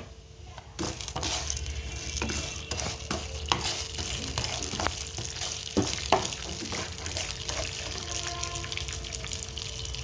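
Chana dal, urad dal and cumin seeds sizzling in hot oil in a kadai, starting about a second in, with the spatula clicking and scraping against the pan as they are stirred.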